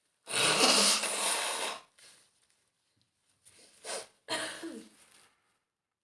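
A woman with a cold sneezing hard: one long, loud sneeze, a few quiet sniffs about three seconds in, then a second, shorter sneeze whose voice falls in pitch.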